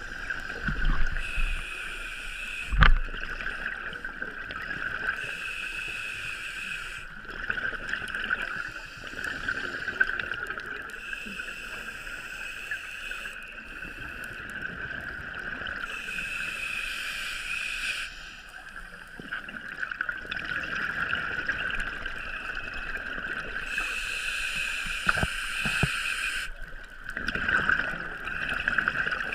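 Underwater sound through a GoPro housing: a scuba diver breathing through a regulator, with gurgling exhaled bubbles that swell and ease every few seconds. A couple of low knocks on the housing come about one and three seconds in.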